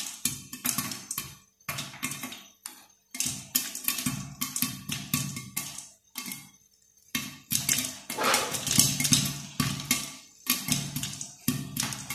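Popcorn kernels popping in hot oil inside a covered kadhai: quick clusters of sharp pops, with a short lull about six seconds in and thicker popping after it.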